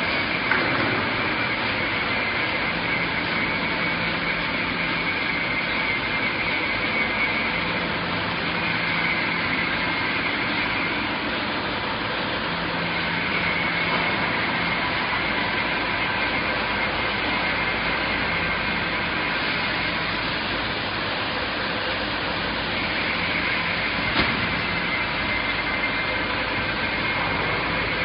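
Steady machinery noise of a bag-palletizing line, with robot arms and roller conveyors running. A high motor whine comes and goes every few seconds over the din, and there is an occasional short knock.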